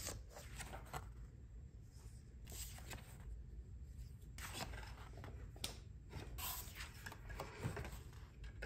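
Faint rustling and sliding of stiff paper cards and a cardboard folder being handled, in short irregular strokes.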